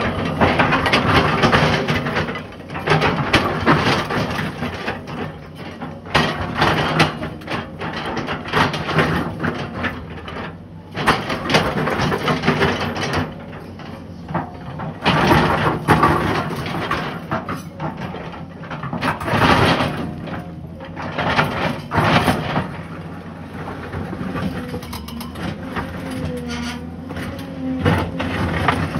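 Excavator's diesel engine running steadily under load while its steel bucket digs through broken rock, with loud bursts of scraping and crunching stone every few seconds as the bucket bites in and rocks tumble.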